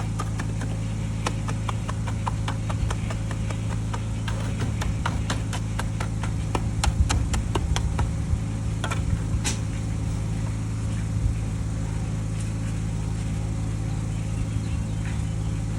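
Concrete mixer running with a steady low hum, while a run of sharp taps and knocks sounds over it for the first half or so, thinning out after about nine seconds.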